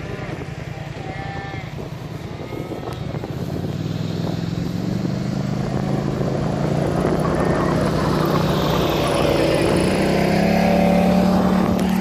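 All-terrain vehicle engine running and drawing closer, growing steadily louder from about four seconds in, over wind on the microphone. A few short animal calls from the herd come about a second in.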